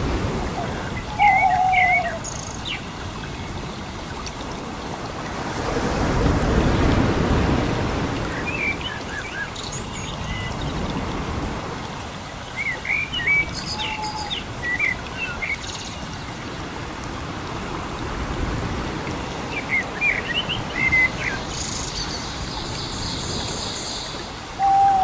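Birds chirping in short, scattered bursts of calls over a steady background hiss, with a louder low rushing noise swelling up about six seconds in.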